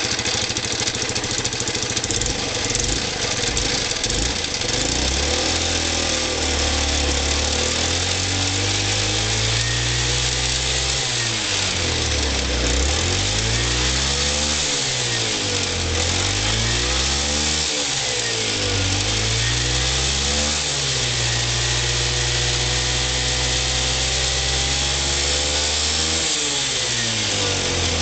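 Yamaha Majesty 125 scooter's single-cylinder four-stroke engine starting, then idling and being revved up and down several times, with a steady idle in between. It is run to check the abnormal noise of a faulty starter one-way clutch.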